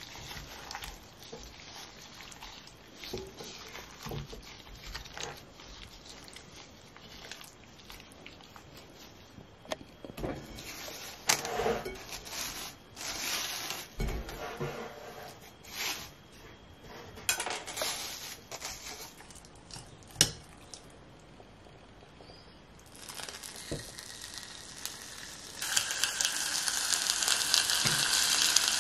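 Raw spiced chicken pieces squelching as a gloved hand works them in a glass bowl, then cling film crinkling and tearing as the bowl is covered. Near the end, marinated chicken drumsticks sizzle in hot oil in a frying pan, the sizzle starting softly and growing louder.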